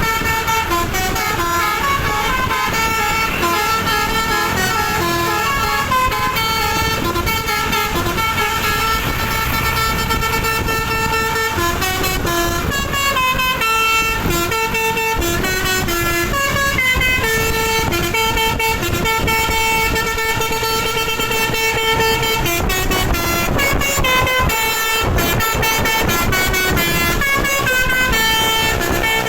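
Bus telolet horn, a set of air-horn trumpets sounded in sequence, playing a long run of tunes with the pitch jumping from note to note almost without a break. Engine and road rumble sit underneath.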